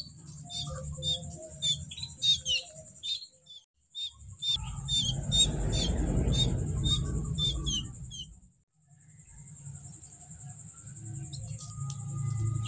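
Young canaries chirping, a quick series of short high calls that stops about eight seconds in. A low rumbling noise rises over them from about four and a half to eight seconds in.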